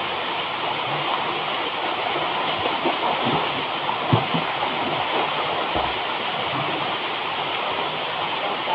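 Small waterfall pouring into a rock pool: a steady rush of falling water, with a couple of brief low thumps about four and six seconds in.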